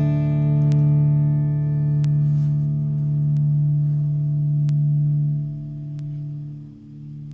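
Richard Wilson electric Weissenborn-style slide guitar letting a final low chord ring out, sustaining and slowly fading, then dropping away about five and a half seconds in.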